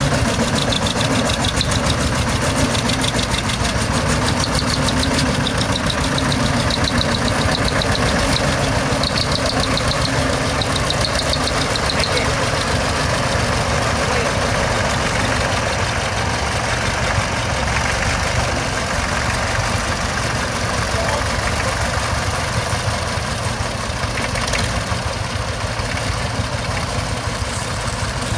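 Vintage farm tractor engine running steadily at low speed as the tractor climbs steel loading ramps into a truck.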